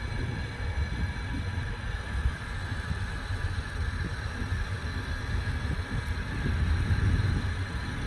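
Wind buffeting the microphone: an uneven low rumble that swells a little near the end, with a faint steady hum underneath.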